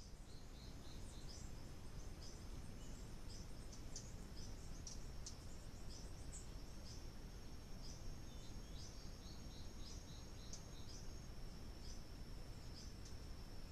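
Forest ambience: a steady, high-pitched insect trill with many short, irregular high chirps over it and a low, even hiss. A second trill just above the first stops about eleven seconds in.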